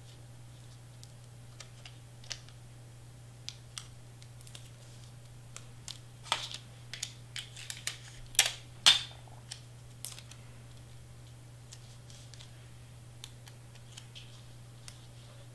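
Cardstock pieces being handled and pressed onto a cutting mat: scattered light taps and paper rustles, with a busier, louder run of them about six to nine seconds in.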